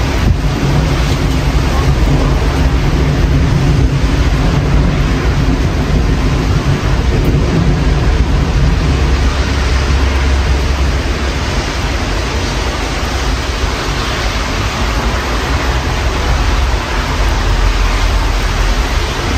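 Thunderstorm: steady rain with wind buffeting the microphone, over a deep rumble that swells and fades twice.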